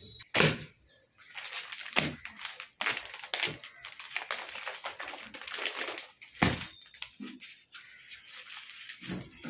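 Clear plastic garment packet crinkling and rustling as it is handled, with a few sharp taps among the rustle.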